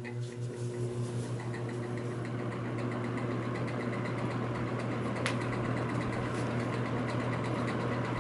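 Manning-Bowman all-metal box fan switched on at its low setting: the motor hums steadily while the blades spin up, the rush of air building over the first few seconds and then holding steady. There is a faint rapid ticking, and a single sharp click about five seconds in.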